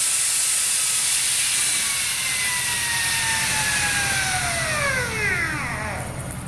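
Compressed-air-driven rotary chimney de-tarring head with carbide-tipped cables spinning. Its air line hisses steadily and its whine falls steadily in pitch over a few seconds. The hiss cuts off about six seconds in.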